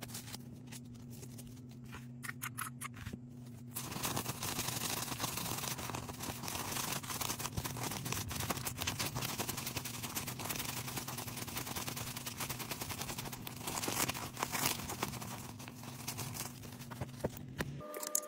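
Philippine peso banknotes riffled and flicked through by hand while counted, a rapid crackle of bills snapping past the fingers. It is sparse at first and turns into a near-continuous run from about four seconds in.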